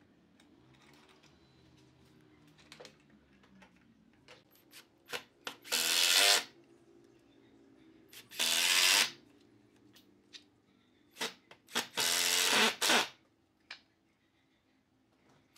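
Makita cordless impact driver driving screws into a wooden bed rail, running in three main bursts of about half a second to a second each, with a couple of short trigger blips and light clicks in between.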